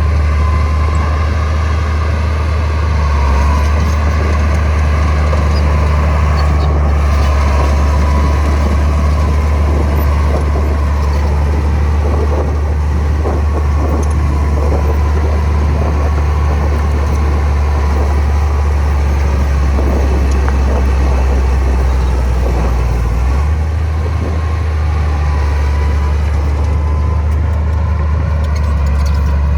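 Heavy diesel engine of earthmoving machinery running steadily under work, a loud low drone with a faint high whine above it.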